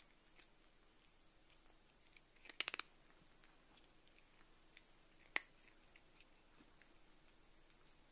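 A cat crunching dry kibble eaten from a hand. The chewing is quiet, with faint small crunches throughout, a quick run of four sharp crunches about two and a half seconds in, and one sharp crunch a little after five seconds.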